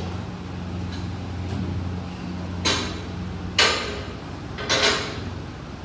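Three short, sharp noises about a second apart as a single-arm cable triceps pushdown is worked on a gym cable machine, over a steady low hum.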